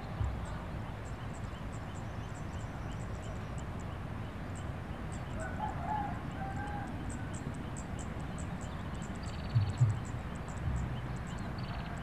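A rooster crowing in the distance about halfway through, over a low steady rumble, with faint rapid high chirping throughout. Two low thumps come near the end.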